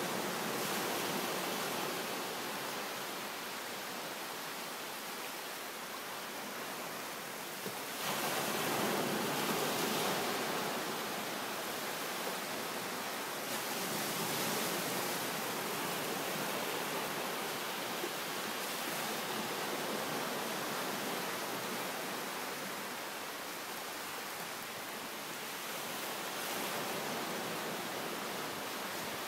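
Small waves breaking and washing up a sand beach, a steady surf hiss that swells as each wave comes in, most strongly about eight seconds in.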